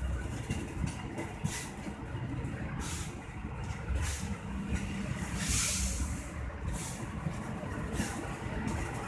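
Stainless-steel passenger coaches rolling past close by: a steady low rumble of wheels on rails, with short bursts of hiss, the loudest about five and a half seconds in.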